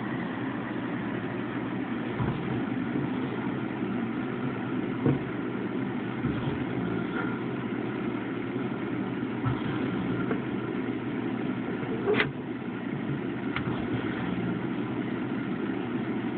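Steady low machine-like hum, with a few light clicks and taps over it; the sharpest click comes about twelve seconds in.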